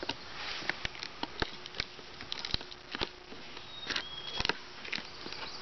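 Cardboard shipping box being handled and its taped lid slit open with a pen: scattered light clicks, taps and scratches on the cardboard.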